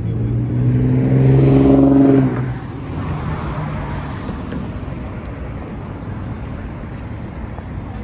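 A motor vehicle's engine running close by as a low, even hum, loudest about one to two seconds in, then stopping abruptly. After that comes steady city street noise of traffic and passing pedestrians.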